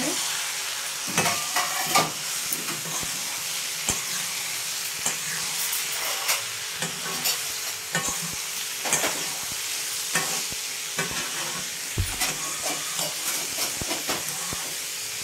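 Grated cauliflower, peas and masala sizzling in a metal kadai while a spatula stirs them. The spatula scrapes and knocks against the pan at an irregular pace, over a steady frying hiss.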